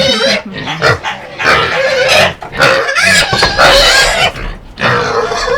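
Several pigs squealing and grunting loudly in long, overlapping calls.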